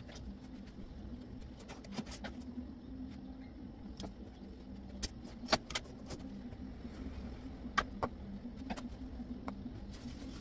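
Clothes hangers clicking and clinking on a wardrobe rail as garments are hung up: scattered sharp clicks, the loudest a little after five seconds in and near eight seconds in, over a steady low hum.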